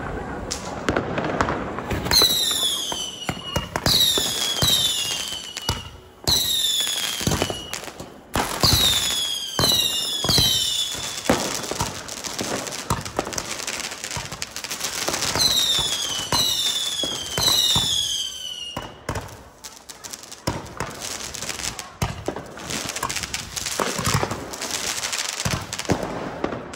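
Consumer firework cake batteries firing in a chained sequence. There are rapid shots, and in two runs many of them carry loud whistles that each fall in pitch. Toward the end comes a denser spell of shots and crackling.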